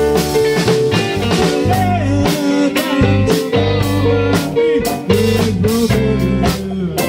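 Blues-rock band playing: electric guitar with bending notes over bass guitar and drums.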